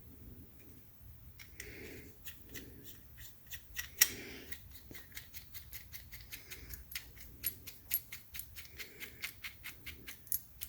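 Hand tool work on the threads of a gear shift knob: a series of sharp clicks, sparse at first, then several a second from about halfway through, with one louder click about four seconds in.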